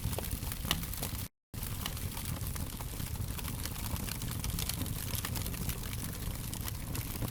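Wood fire crackling: a dense run of small sharp pops and snaps over a low steady rumble of flames. The sound cuts out completely for a split second about a second in, then resumes.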